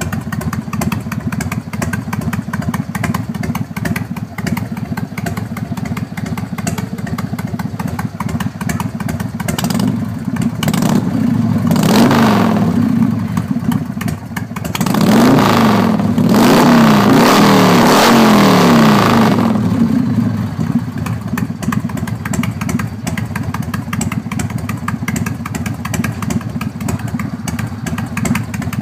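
Harley-Davidson Fat Boy's 1340 cc Evolution V-twin, fitted with Screaming Eagle heads and exhaust, idling, then revved in blips about ten to thirteen seconds in. It is held at higher revs for about five seconds before dropping back to idle.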